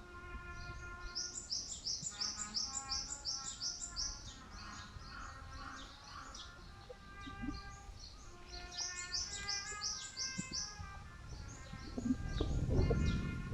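Birds calling. One bird gives two runs of rapid, high-pitched chirps, about eight a second, and other birds call more steadily at a lower pitch underneath. A low rumble swells near the end.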